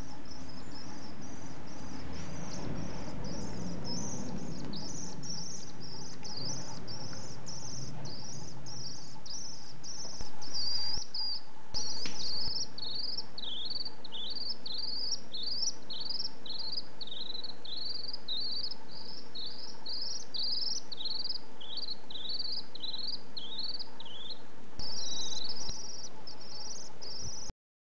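Young common swift (Apus apus) giving a long series of thin, high-pitched chirping calls, each a short quick rise and fall, repeated a little under twice a second. A faint steady hum lies underneath.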